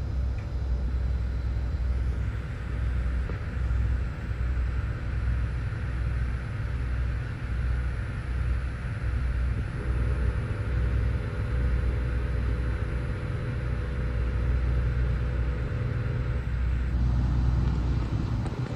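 Towboat diesel engines running steadily: a low rumble with a constant hum.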